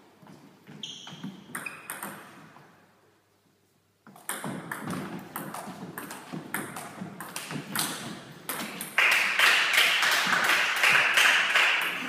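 Table tennis rally: a celluloid ball clicking off rubber bats and bouncing on the tabletop, several hits a second, starting about four seconds in after a few scattered taps. From about nine seconds in, a louder steady hiss-like noise joins the clicks until the end.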